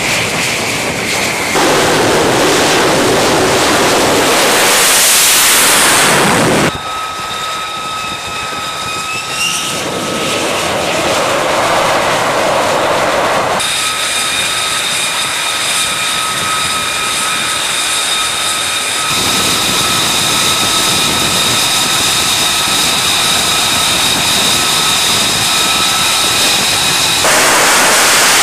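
F-35C Lightning II jet engine running on a carrier flight deck: a rushing roar with a steady whine of several high held tones through most of the stretch. Louder stretches of roar without the whine come in the first few seconds and again near the end.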